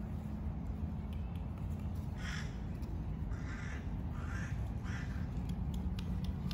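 A bird calling four times in short, rasping calls, a little under a second apart, over a steady low background rumble.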